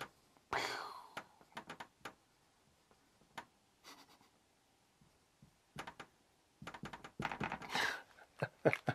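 Marker pen drawing on a wall chart: faint short scratchy strokes and taps, with a quick run of strokes a little before the end.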